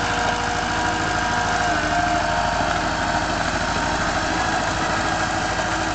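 Engine of an aquatic weed-cutting boat running steadily while its front cutter lifts weed, with a few steady higher tones over the engine note.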